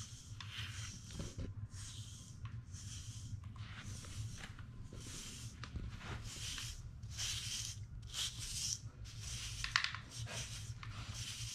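Grooming brush strokes through a dog's coat: a steady run of short scratchy swishes, about one and a half a second, over a faint low hum.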